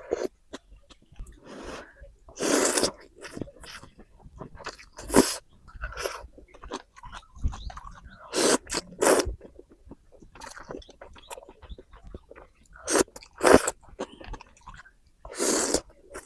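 Close-up eating sounds of instant noodles and meatballs: wet chewing and bites in irregular bursts, some short and some about half a second long.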